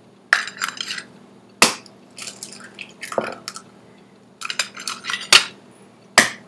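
Raw eggs being cracked against a ceramic casserole dish: several sharp cracks of shell, one every second or so, with lighter clicks of shell between them.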